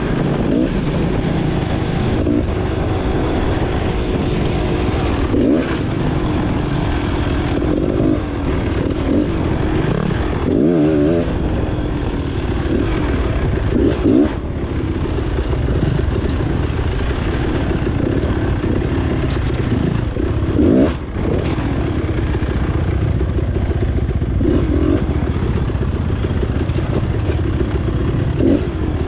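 Beta enduro dirt bike engine running as it is ridden along a trail, its pitch rising and falling with the throttle and a few quick revs.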